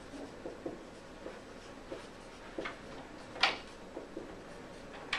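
Dry-erase marker writing on a whiteboard: short, soft scratching strokes and taps, with one louder stroke about three and a half seconds in.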